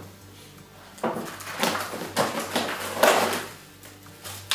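Plastic packaging and the foil-lined insulated bag rustling and crinkling as a frozen vacuum-sealed pork chop is pulled out, in a run of irregular bursts from about a second in until near the end.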